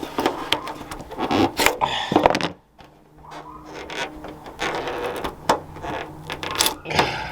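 Plastic trim on a Cadillac Escalade's rear hatch being pried and worked loose: repeated scraping with sharp clicks and knocks, a short lull just before the middle, then more clicks.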